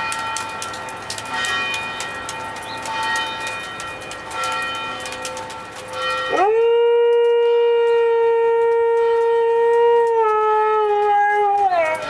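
Church bells ringing for the first half, then a husky howls along with them: one long howl starting about six seconds in. It rises quickly, holds a steady pitch, dips slightly a few seconds later and falls away as it ends.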